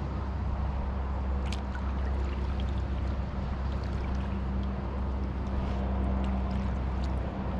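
Kayak paddling: water dripping and trickling off the paddle and lapping at the hull, with scattered small drips and ticks over a steady low rumble.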